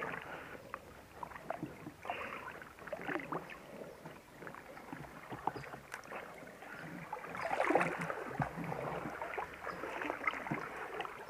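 Water splashing and sloshing irregularly as someone wades through a shallow creek, with a louder burst of splashing about seven and a half seconds in.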